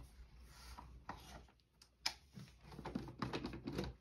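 Light, irregular clicks and taps of small things being handled, with one sharper click about halfway and a quick run of small taps near the end.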